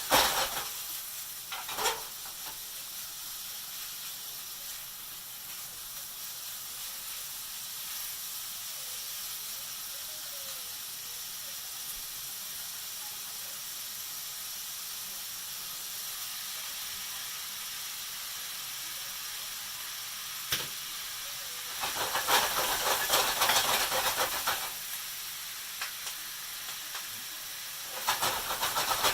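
Food sizzling and hissing in a hot pan on the stove, a steady frying hiss with a couple of light knocks near the start. It swells into louder, rougher sizzling for a couple of seconds about two-thirds of the way through and again near the end, as the food is stirred.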